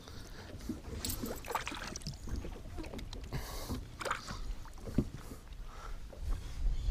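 Water sloshing and splashing against the side of a fishing boat, with scattered light knocks on the hull and deck.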